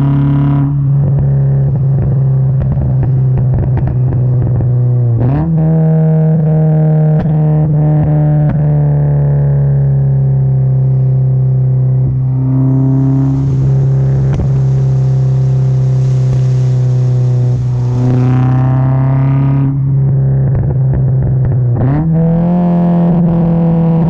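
Mazda MX-5's four-cylinder engine heard at the tailpipe through an aftermarket exhaust with no baffle, driving at steady revs; the note steps up in pitch about five seconds in and again near the end, with a few sharp crackles around those changes. A rush of hiss rises for a few seconds in the middle.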